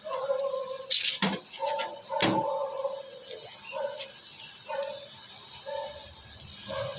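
An animal calling over and over in short notes held at one pitch, about one a second, with two sharp clicks in the first few seconds.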